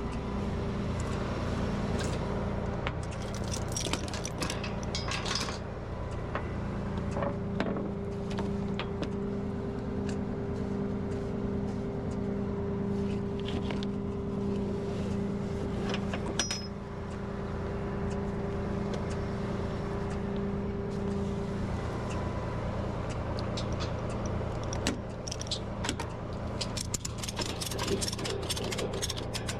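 Tow truck engine running steadily, with scattered metallic clinks and rattles throughout.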